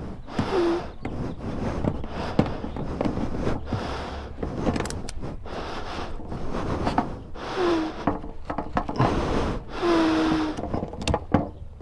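Tie-down straps scraping and rubbing as they are worked around a load, in uneven pulses with a few sharp clicks and three short, falling squeaks.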